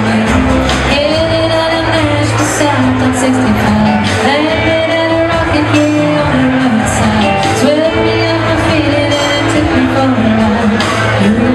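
A live band playing: a woman sings lead over a strummed acoustic guitar, with bass and drums behind her, in sung phrases that rise and fall.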